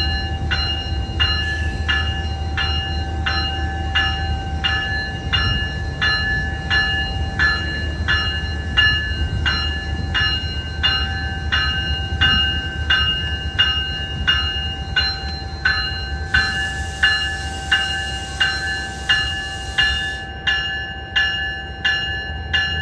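MPI MP36PH-3C diesel locomotive idling close by with a steady low drone. Over it, a bell rings steadily at a bit under two strikes a second, and a hiss comes in for a few seconds past the middle.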